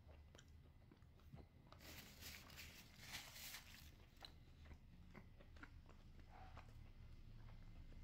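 A person chewing a mouthful of pizza, faint and close: soft wet clicks, with a denser crunching stretch, likely the crust, from about two to four seconds in.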